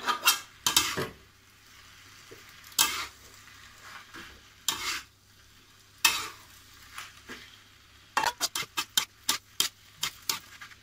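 Metal spoon scraping and clanking against a wok while stir-frying flat rice noodles (kwetiau) with mustard greens, over a faint sizzle. Single scrapes come every second or two, then a quick run of about ten short clicks near the end.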